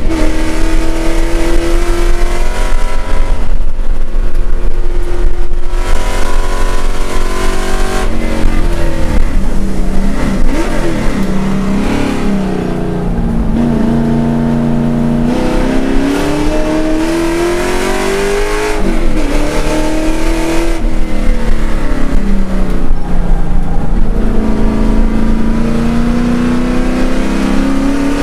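Holden Commodore V8 race car's engine heard from inside the cabin under racing load, revs climbing through the gears, dropping sharply at each shift and under braking for corners, then rising again.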